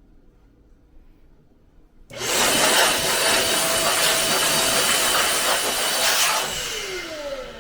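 A blast of compressed air hissing into a desktop PC's case for about four seconds, starting suddenly about two seconds in, to blow out dust. As the blast eases off near the end, a falling whine is heard, typical of a fan spun up by the air and now spinning down.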